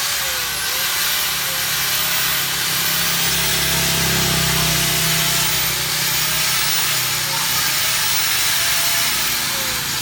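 Hitachi 720 W handheld electric cutter running steadily after switch-on, a loud motor and blade whir whose whine wavers slightly in pitch.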